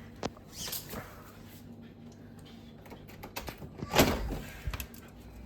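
A door being opened: scattered clicks and knocks from the handle and lock, then one loud clatter about four seconds in as it swings or slides open.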